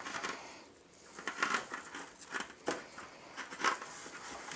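Kitchen handling noises: a few irregular soft crinkles and rustles.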